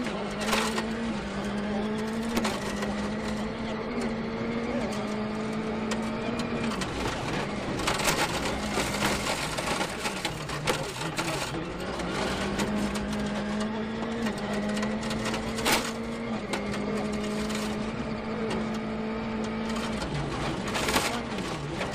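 Ford Fiesta RS WRC rally car's 1.6-litre turbocharged four-cylinder engine held at high revs, its pitch dropping and climbing back three times as the car lifts off and accelerates again, with sharp cracks now and then.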